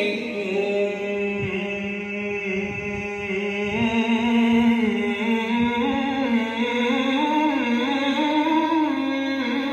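A male singer holding one long, ornamented melismatic run in an unaccompanied Arabic devotional song, the pitch winding up and down over a steady low drone.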